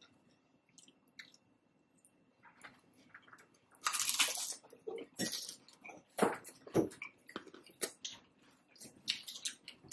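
A person chewing a mouthful of taco salad with crisp tortilla strips: a few faint mouth clicks at first, then crunchy bites and chewing from about four seconds in, in short irregular bursts.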